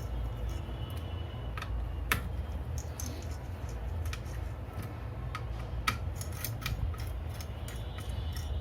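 Small hard parts and tools being handled on a workbench: scattered light clicks and taps, with two sharper clicks about two and six seconds in, over a steady low hum.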